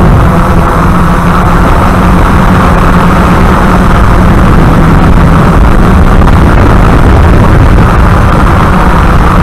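DJI F550 hexacopter's motors and propellers running steadily and loudly, heard from the camera on board, as a dense rushing whir with a steady low hum.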